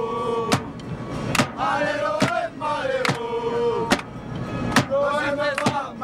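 Marseille football supporters chanting a song together in held, sung notes, over a drum struck steadily a little more than once a second.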